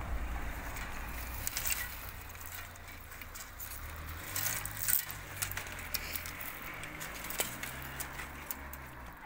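Scattered sharp clicks and rustling of dry grapevine canes being handled and snipped with pruning shears, over a low steady rumble.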